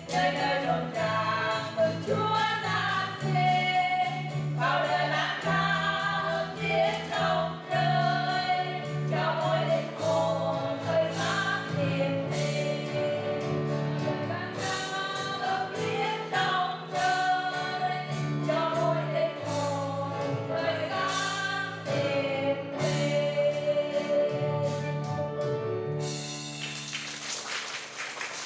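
Female vocal quartet singing in harmony over instrumental accompaniment. About two seconds before the end the singing stops and a hissing wash rises as the music fades away.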